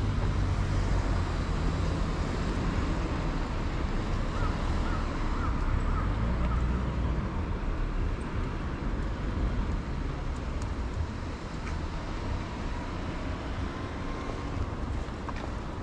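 Street traffic: a steady low rumble of cars on the road, easing slightly toward the end.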